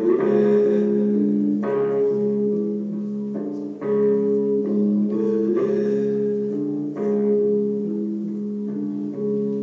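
Live psychedelic music: guitar notes struck every second or two over a steady low drone, with a slowly changing melodic line.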